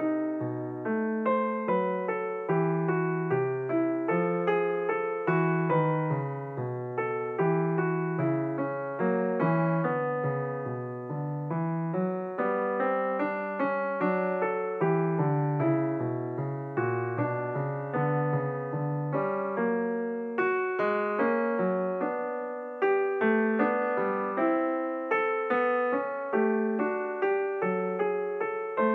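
Background piano music, a continuous flow of struck notes with no other sound standing out.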